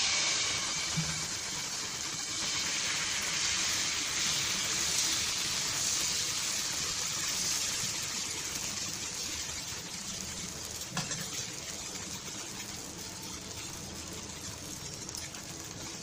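Dosa batter sizzling on a hot griddle as it is poured and spread in a spiral with a ladle: a hiss that starts suddenly, then slowly fades. A light tap of the ladle comes about two thirds of the way through.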